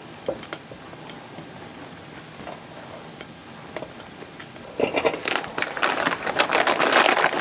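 A few faint clicks and touches as hands handle a glass bowl packed with moss, then, about five seconds in, a louder crackly rustling and crinkling as a hand rummages in a plastic bag of sphagnum moss.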